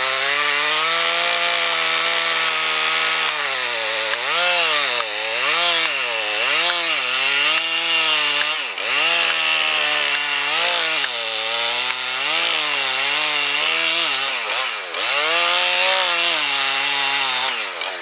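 Large Husqvarna two-stroke chainsaw cutting through a big poplar trunk in a felling cut at full throttle. Its engine speed sags and recovers again and again as the bar is pushed into the wood, and it cuts out at the very end.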